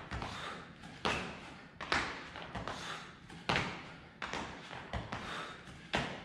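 Thuds of two people's hands and feet landing on a rubber gym floor as they do burpees, about one a second and out of step with each other.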